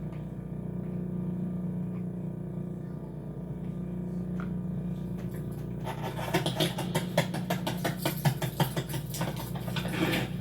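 Steady low hum with a few faint clicks, then from about six seconds in a rapid, irregular flurry of sharp clicks and taps.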